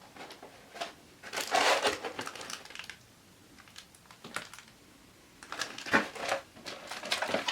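A plastic torque-wrench storage case being opened and handled: a burst of rustling about a second and a half in, then a quiet pause, then several sharp clicks and rustles near the end.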